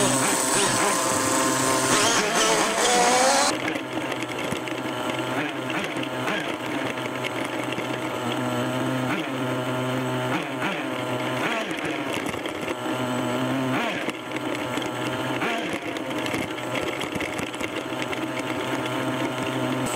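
Nitro glow-fuel engine of a Kyosho Mad Force RC monster truck running as the truck drives, its high buzzing pitch rising and falling with the throttle.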